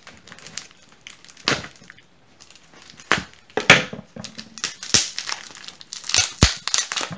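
A small parcel's plastic wrapping and packing tape crinkling and crackling as it is pulled and squeezed by hand, in short irregular bursts with a few sharper cracks.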